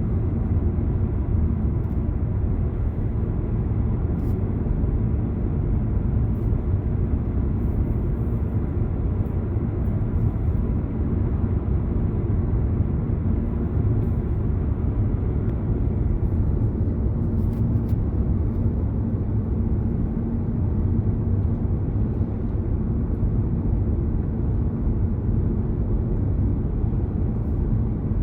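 A car driving along at a steady pace: a constant low rumble of road and engine noise that holds unchanged throughout.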